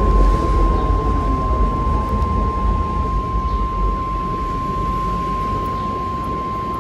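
NOAA Weather Radio warning alarm tone, a single steady 1050 Hz beep held unbroken, sounded for the weekly test of the alert receivers. It rides over a heavy low rumble and hiss of reception noise.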